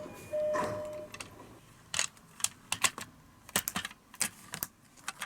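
A brief steady tone a little after the start, then a dozen or so irregular sharp light clicks and taps.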